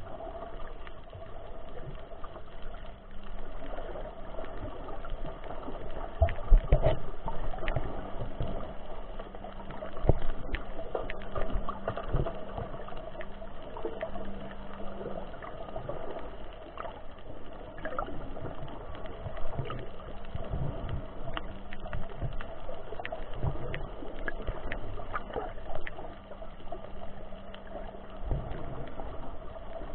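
Underwater ambience heard through a submerged camera's housing: a muffled wash of water with irregular low thumps and scattered faint clicks, over a steady low hum.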